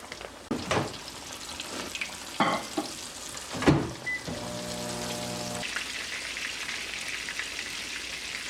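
Battered fish frying in hot oil at about 350°F in a pan, the grease sizzling and spitting, with a few knocks as pieces are laid in early on. The sizzle grows louder and denser about six seconds in.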